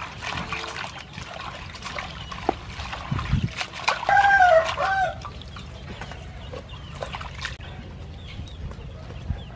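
Hands swishing and squeezing leafy greens in a stainless steel bowl of water, with splashing and trickling. About four seconds in, a chicken gives one loud call lasting about a second.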